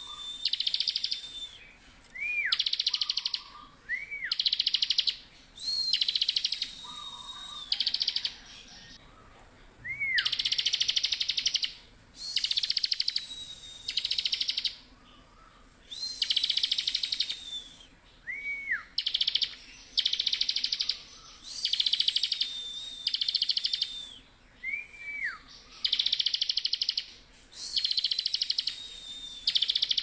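Bar-winged prinia (ciblek) singing at full intensity, 'ngebren': phrases about a second long, repeated one after another, of very fast buzzy chattering trills. Between them come thin high whistles that drift slightly down and short rising chirps that hook back down.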